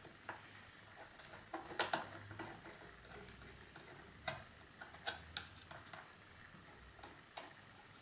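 Faint, irregular clicks and ticks from a worm-drive Jubilee hose clip on a car's air-intake hose being loosened, the loudest about two seconds in.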